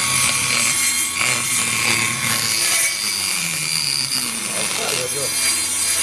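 Small table saw cutting through a wooden board: a harsh, dense cutting noise over the steady whine of the running motor.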